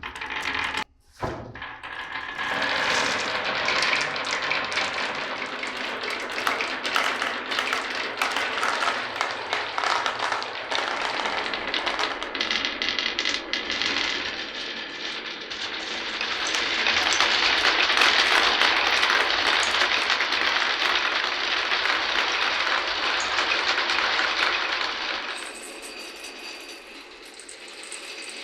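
Many glass marbles rolling and clattering down a wooden marble run in a dense, continuous run of clicks. It starts with a couple of separate knocks, builds to its loudest in the second half, then thins to a fainter rattle near the end.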